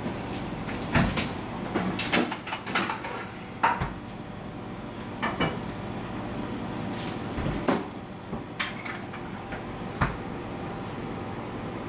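A ceramic soup spoon knocking and scraping against a ceramic pot of soup: a scatter of sharp clinks, busiest in the first few seconds, over a steady background hum.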